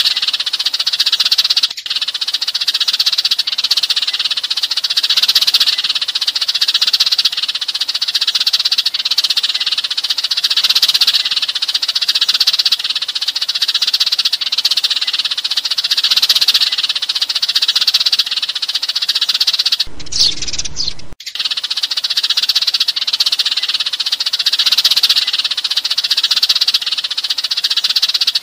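A flock of sparrows chirping and chattering in a continuous, dense chorus: the flock-calling chatter used as a lure to bring sparrows in. About twenty seconds in the chorus breaks off for about a second and then resumes.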